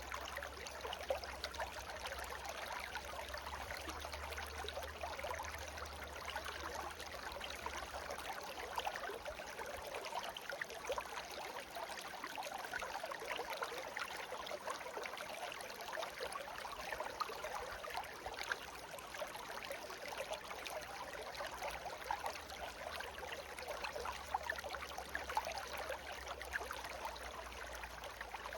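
Shallow stream babbling: a steady rush of water full of small splashes and gurgles, with a low rumble underneath for the first few seconds and again near the end.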